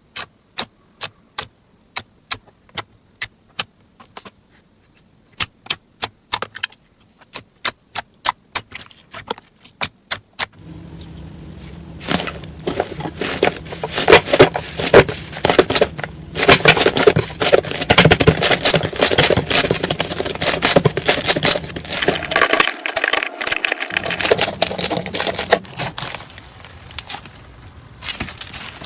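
Slime being handled for ASMR. First comes a run of sharp clicks, about two a second, with a short pause. Then comes dense crackling over a low hum, which thins out near the end.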